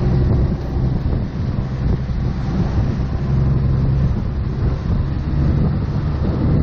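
Motorboat under way: its engine running steadily at speed, with water churning in the wake and wind buffeting the microphone.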